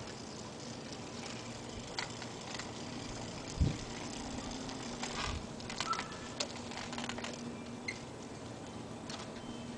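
Light clicks and rattles from a collapsible aluminum-frame three-wheeled scooter rolling on asphalt as it comes close, over a steady faint outdoor background, with one dull thump about three and a half seconds in.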